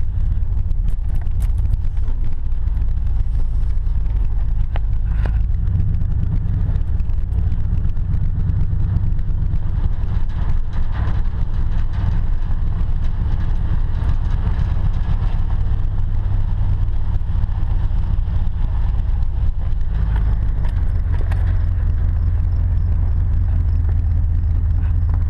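Pickup truck's engine and tyres heard from inside the cab while driving slowly on a gravel road: a steady low rumble that grows louder about twenty seconds in.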